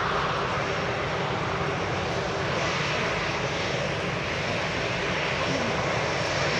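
Boeing 737 MAX 8's twin CFM LEAP-1B turbofans at takeoff thrust, heard from behind as the jet rotates and lifts off: a steady, dense jet noise with no breaks.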